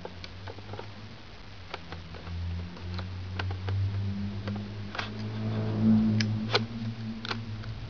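Scattered plastic clicks and taps, with a low rubbing rumble, as gloved hands push a film pack into the open film compartment of a Polaroid 600 instant camera. The clicks are sharpest a little past the middle.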